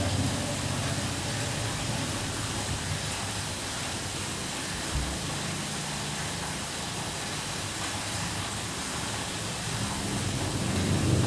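Light rain heard from indoors as a steady hiss, with low thunder rumbling beneath it. A single low thump comes about halfway through, and a deeper rumble starts to swell near the end.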